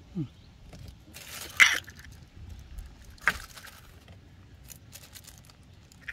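Eggs being cracked into a mixing bowl of chopped noodles and vegetables: a short crunching scrape about a second and a half in, then a sharp click about three seconds in.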